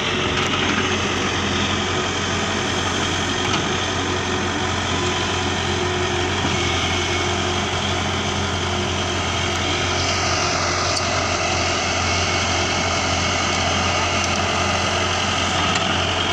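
Heavy diesel engines running steadily: a JCB 140 Xtra crawler excavator working close by, with a tractor engine idling.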